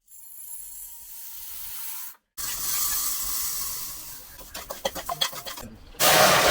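Food sizzling in a hot pan: a steady hiss with a run of crackling pops about four and a half seconds in, then a sudden louder burst of sizzling at about six seconds.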